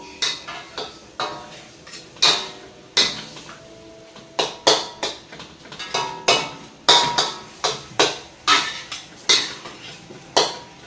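Metal wok spatula and ladle clanking and scraping against a steel wok as fried rice is tossed and mixed. The strikes are sharp and irregular, about one or two a second, several with a short metallic ring.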